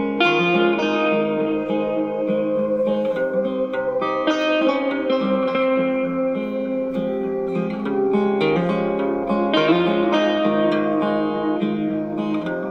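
Plucked guitar music played through a single-PCL82-tube 12 V amplifier and its small built-in speaker, several notes sounding at once.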